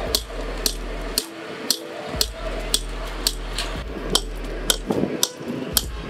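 Hammer blows at an even rate of about two a second, each a sharp knock. A low steady hum runs underneath and cuts out twice.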